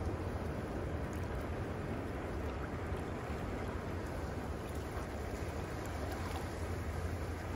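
Ocean surf washing steadily on the shore, with a constant low rumble.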